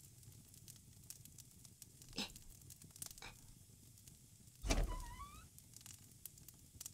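Sparse cartoon sound effects: two faint short taps, then a low thump about five seconds in followed by a short rising, wavering whistle.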